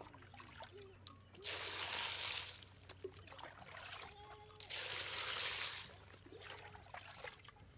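Water splashing into a large aluminium pot of cubed green papaya in two spurts of about a second each, a few seconds apart.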